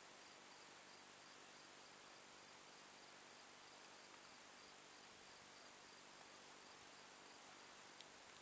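Near silence: a faint hiss with a thin, steady high-pitched trill, and a faint click near the end.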